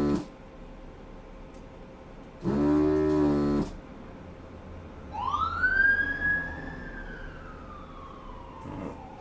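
An emergency-vehicle siren wails outside: one tone that rises quickly about five seconds in and then slowly falls away. Earlier, about two and a half seconds in, a steady buzz sounds for about a second, typical of the desoldering station's vacuum pump being triggered.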